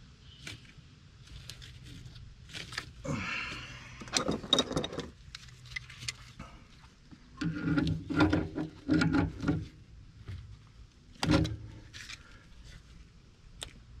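Hands working brass pipe fittings together: scattered clicks, scrapes and rustles, with clusters of louder handling noise in the middle and one sharp knock near the end.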